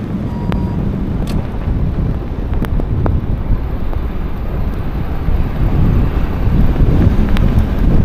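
Rough, continuous low rumble of wind buffeting the microphone, mixed with the road noise of a vehicle driving along a snow-covered highway.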